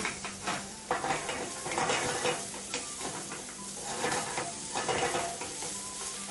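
Chopped shallots and garlic sizzling in oil in a metal frying pan, stirred and scraped around with a wooden spoon in irregular strokes over a steady hiss.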